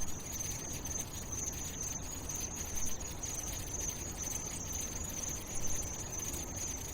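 Steady background ambience: an even, continuous high-pitched hiss or chirring over a low rumble, with no music or voice.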